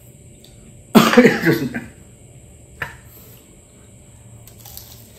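A man coughs once, loud and rough, about a second in. A single sharp crunch follows a couple of seconds later as he bites into a crispy fried spring roll.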